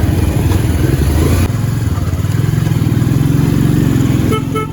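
Motorcycle engine running while the bike is ridden, its pitch shifting as the speed changes. Two short high beeps sound near the end.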